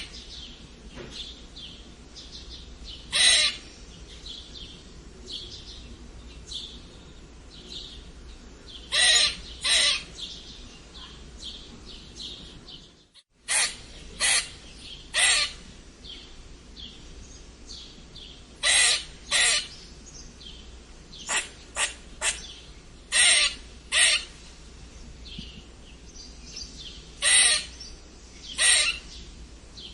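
Squirrel squeaking: short, high-pitched squeaks, singly or in quick pairs, repeated at irregular intervals over a faint steady hiss. A brief break about 13 seconds in.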